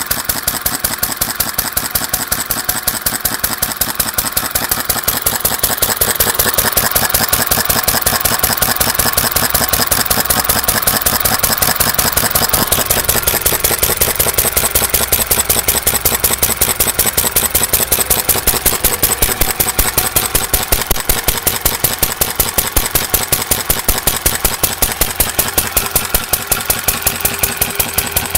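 IHC McCormick-Deering 1-1/2 HP single-cylinder hopper-cooled gas engine running steadily, its exhaust popping in a fast, even beat of several strokes a second with no misses.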